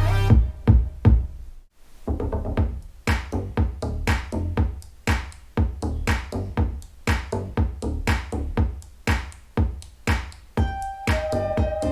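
Electronic music with a drum-machine beat and heavy bass, played as a demo through a small ported subwoofer with a Tang Band W6-1139SIF 6.5-inch driver. The music drops out briefly just under two seconds in, then the beat resumes.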